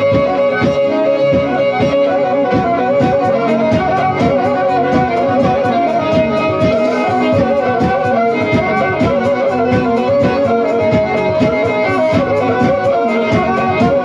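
Three-string Black Sea kemençe bowed solo, playing a fast folk melody over a steady beat.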